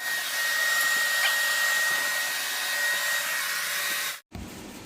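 Festool SYS AIR M air purifier's fan running steadily: an even rush of moving air with a thin high whine. It starts and stops abruptly.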